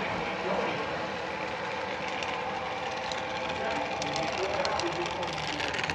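Model freight train cars rolling past on the layout track, a steady rolling rumble with faint wheel clicks, under indistinct background voices.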